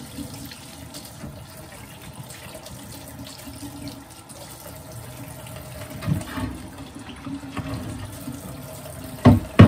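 Kitchen faucet running steadily into a stainless steel sink as hands work under the stream, rinsing catfish slime off. Two sharp knocks near the end stand out as the loudest sounds.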